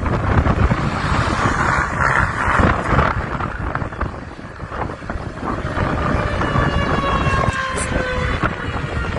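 Wind buffeting the microphone with a steady low rumble. From about halfway in, an outdoor tornado warning siren wails, its pitch slowly falling.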